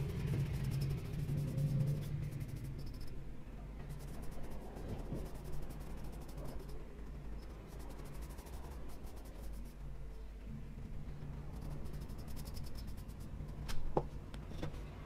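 Paintbrush bristles stroking wood finish onto a wooden plane handle, a soft scratchy rubbing over a steady low hum, with one light knock near the end.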